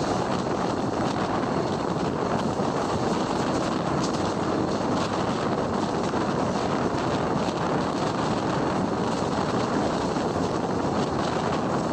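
Steady running noise of a moving Indian Railways passenger coach, heard from an open coach window: wheels rolling on the rails and the coach rumbling at speed.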